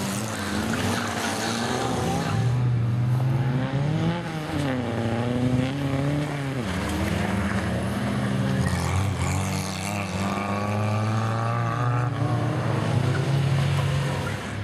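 Car engines revving hard as old sedans race around a dusty track, the pitch climbing and falling again and again with throttle and gear changes. For a while two engines overlap at different pitches.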